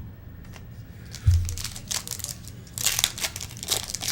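A trading card pack's wrapper crinkling and being torn open, with a low thump about a second in.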